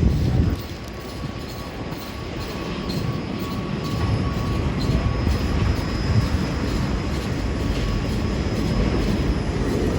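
Steady low vehicle rumble with a faint high-pitched whine held throughout, dipping briefly about half a second in and then slowly building.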